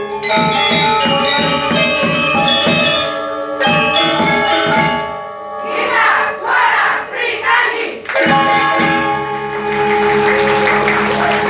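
A choir singing sustained chords with sharp attacks, broken about six to eight seconds in by a noisier, rhythmic passage before a new held chord.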